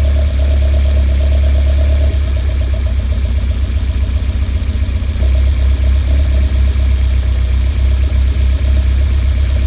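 Westfield's Ford Zetec Blacktop four-cylinder engine idling with a misfire. From about two to five seconds in the running turns uneven and stumbling, then steadies again.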